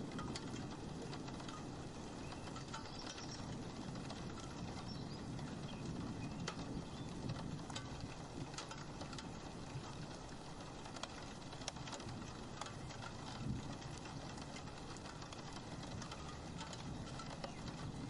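Steady rain falling on a roof window: an even hiss of rainfall with many separate drops ticking sharply on the glass at irregular moments.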